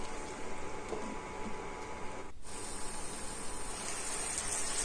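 Mutton and potato curry sizzling in a kadai, a steady hiss. It cuts out briefly about halfway through and comes back a little brighter.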